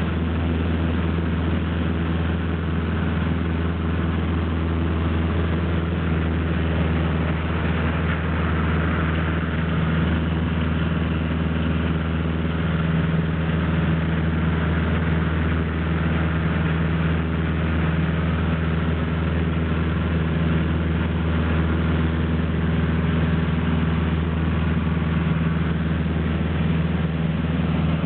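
Light single-engine aircraft's piston engine and propeller at takeoff and climb-out, a steady low drone heard from inside the cabin.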